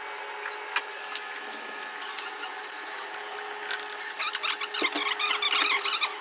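Onion rings frying in a pan of oil, with metal tongs clicking against the pan; the crackle grows dense and busy from about four seconds in. A steady hum of kitchen equipment runs underneath.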